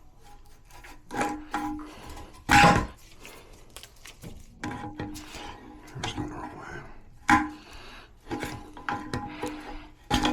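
Hard objects being handled: irregular knocks and clunks with rubbing between them, the loudest a heavy thump about two and a half seconds in. Faint steady tones come and go underneath.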